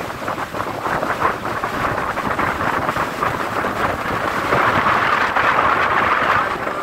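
Strong gale-force wind gusting over the microphone at the seashore, with rough sea behind it; the rush swells louder about two thirds of the way through.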